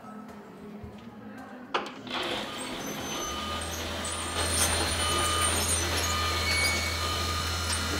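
A click, then about two seconds in a steady machine drone starts up, with a low hum and a few thin high tones.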